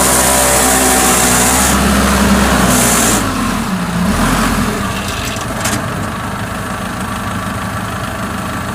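Kubota DC-105X rice combine harvester's diesel engine running under load as the machine crawls through mud, its pitch rising and falling over the first few seconds. A high hiss sounds twice in the first three seconds, and after about three seconds the engine settles lower and steadier.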